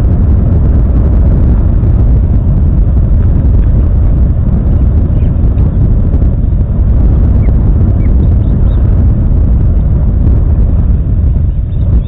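Wind buffeting the microphone: a loud, steady low rumble with no pitch to it. A few faint, short high calls show through it.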